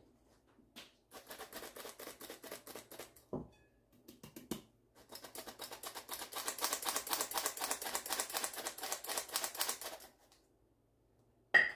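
Hand-operated stainless-steel flour sifter being worked over a mixing bowl: rapid, even clicking of its mechanism with a hiss of flour, in a short run and then a longer, louder one. A single sharp knock near the end.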